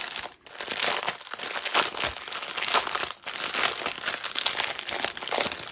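Plastic packaging of diamond painting drills crinkling and rustling as it is opened and handled, a continuous crackle with two brief pauses.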